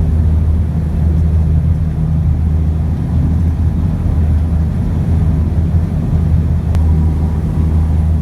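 Ship's engine running with a steady low drone, heard on board.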